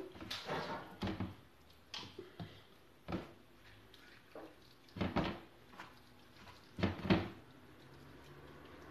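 Hands working raw chicken pieces in marinade in a plastic tub: irregular short squelches and light knocks against the plastic, a few seconds' worth of scattered handling sounds, the loudest about five and seven seconds in.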